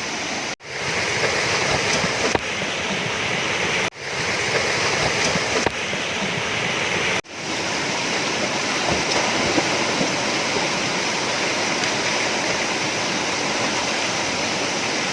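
Waterfall rushing steadily. The sound cuts out abruptly three times and swells back in.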